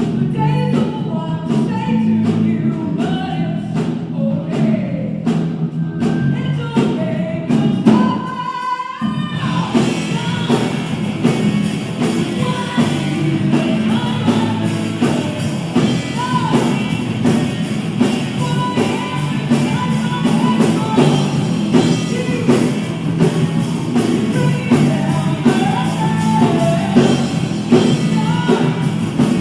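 Live pop-rock band playing with a lead singer and drums, recorded on a phone so the sound is distorted. The bass drops out briefly about nine seconds in before the full band comes back in.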